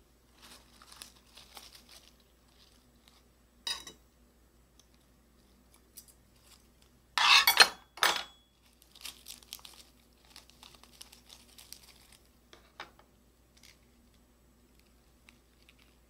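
Fresh lettuce leaves crinkling and rustling as they are handled and folded around a piece of beef, loudest in a short crackly burst about seven seconds in. A single sharp click comes shortly before four seconds.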